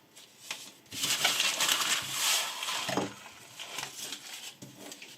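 A steel knife blade scraping, with a long scraping stroke from about one to three seconds in, then a few small scrapes and ticks.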